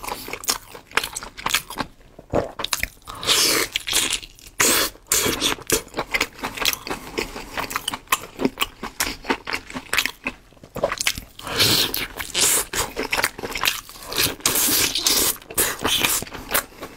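Close-miked eating: a man bites into and chews glazed ring-shaped food, many quick wet clicks and smacks of mouth and food.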